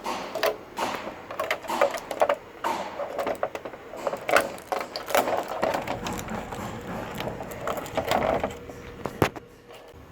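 Irregular clicks, taps and rattles of hands working a small circuit board out of a flat-screen TV's casing, with one sharp click about nine seconds in.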